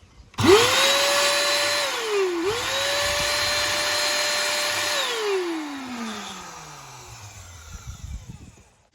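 Shark NV800UK vacuum cleaner's motor switched on and spinning up to a steady high whine. About two seconds in it dips and spins back up, then around five seconds it is switched off and winds down with a long falling pitch. It is running again after a snapped wire was soldered back on.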